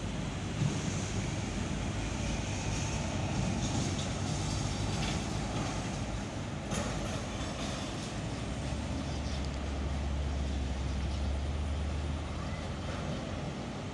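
Three CC 202 diesel-electric locomotives approaching in the distance: a steady low engine rumble that grows stronger about two-thirds of the way in, over a constant outdoor noise.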